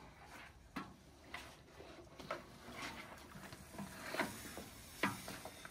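Wooden spoon stirring beef being fried for pulao in a large metal pot, knocking and scraping against the pot about five times at irregular intervals.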